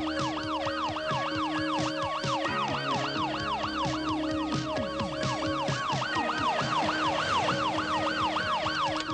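A fast yelping siren, rising and falling about three to four times a second, over music with held tones and a moving bass line.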